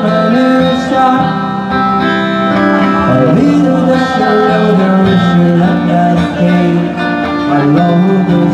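Live band playing a 1960s pop song, with guitar prominent over a steady accompaniment.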